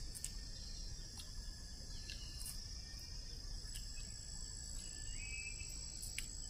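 Steady high-pitched drone of forest insects, with a few faint clicks and a couple of short chirps.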